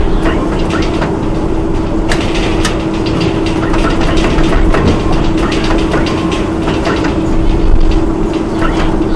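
Loud heavy machinery running: a steady hum over a low rumble, with frequent metallic knocks and clatter throughout.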